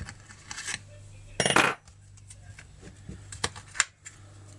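Metal clinks and clicks of a screwdriver and screws as a cover is unscrewed and lifted off a chainsaw's crankcase to get at the oil pump. The loudest moment is a short scraping rattle about one and a half seconds in.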